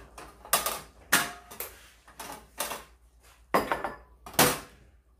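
Tableware clinking: utensils knocking against dishes in about half a dozen sharp, irregular clinks, some with a brief ring.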